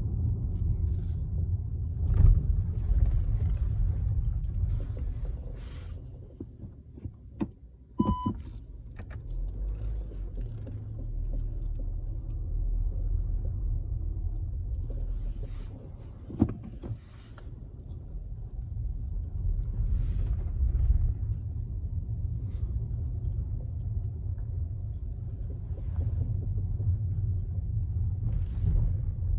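SEAT Ateca running with a steady low rumble, broken by a few sharp knocks about two, eight and sixteen seconds in. The knocks are the knocking noise the owner is showing as a fault. A short beep sounds around eight seconds in.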